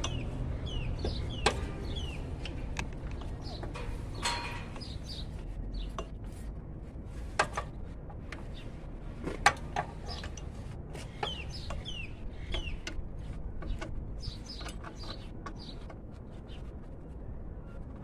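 Birds calling in the background, a string of short chirps that slide down in pitch, repeated throughout, with a few sharp clicks and knocks of hand tools on metal.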